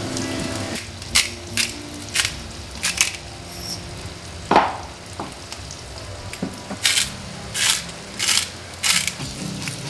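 A hand-twisted spice grinder crunching in short rasping bursts over a pan, about four near the start and four more near the end, with a single sharper knock about halfway. Eggs sizzle quietly in the pan underneath.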